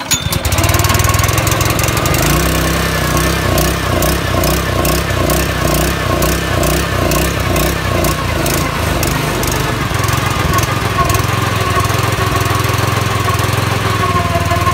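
Honda small four-stroke engine on a fire-pump skid unit catching on a pull of the recoil starter, started with the choke on. It runs loudly with an uneven, pulsing beat for several seconds, then settles to a steadier run.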